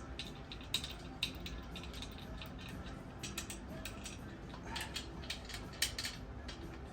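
Hand tools working on a motorcycle engine: irregular light metallic clicks and taps, with a few sharper clicks about a second in and again near the end.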